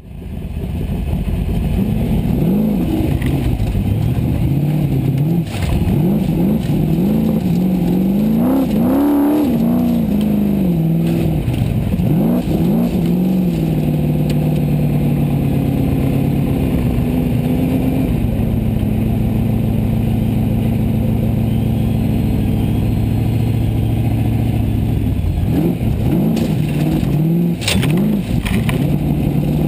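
Formula Offroad car's engine heard from inside the car, revved in repeated rising and falling blips, then settling into a steady run from about halfway before being revved again near the end, with a few sharp clatters.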